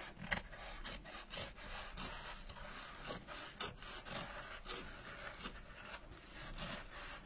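Small scissors snipping and trimming felt glued over a polystyrene pumpkin: a faint, irregular run of short cutting and rubbing scratches.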